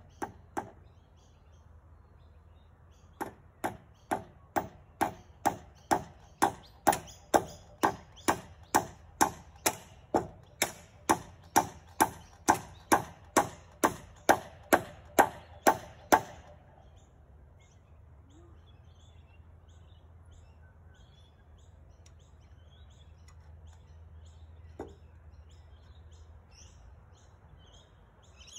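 Hammer blows driving a nail into a 190 x 45 treated-pine roof beam: a steady run of sharp strikes at about two a second for some thirteen seconds, growing louder, then stopping. A single knock follows near the end, with faint bird chirps behind.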